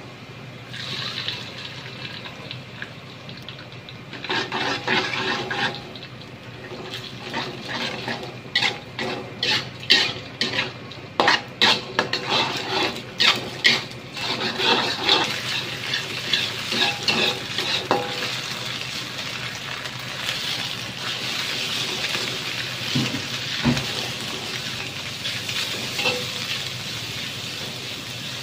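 Steel spatula scraping and clanking against a metal wok as egg and sliced meat are stir-fried in hot oil. A run of sharp clanks comes in the middle, and a steadier sizzle with lighter scraping fills the second half.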